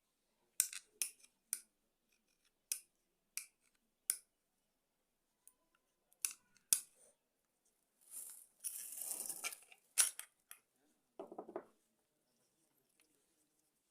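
Sharp clicks and snips from small hand tools and parts being handled, with a longer scraping rustle about eight seconds in and a short duller knock a little after.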